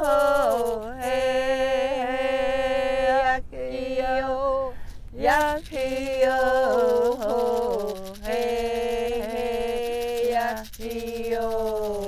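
An unaccompanied voice sings a wordless chant in vocables, holding long notes that step down and up in pitch with slight wavers, and breaking off briefly between phrases.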